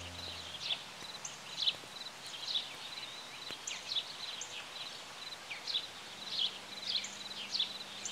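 Birds chirping, short quick calls repeating irregularly over a faint steady outdoor hiss; the tail of a music chord fades out in the first second.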